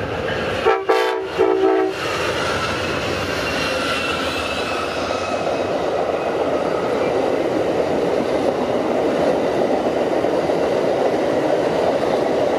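Amtrak GE P42 Genesis locomotive's horn sounding a quick salute of several short blasts about a second in. Then the train's bi-level Superliner passenger cars roll past with a steady rumble of wheels on rail that grows slightly louder.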